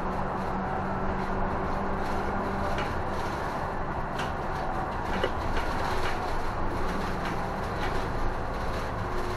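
Inside the cabin of an Isuzu city bus on the move: a steady engine hum over road noise, with a few faint rattling clicks about halfway through.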